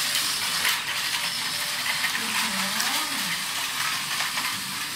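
Battery-powered Thomas & Friends toy trains running on plastic track: a steady whirring hiss with scattered light plastic clicks and rattles.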